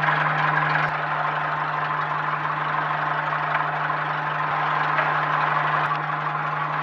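Zenith STOL CH 750 light aircraft's engine and propeller running steadily at low taxi power, heard inside the cockpit, as a constant low hum with a broad rushing drone over it. The level eases slightly about a second in.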